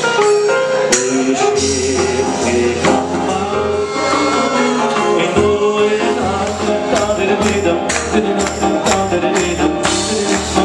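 Live band playing an upbeat song on drums, hand percussion, electronic keyboard and electric bass, with a man singing into a microphone.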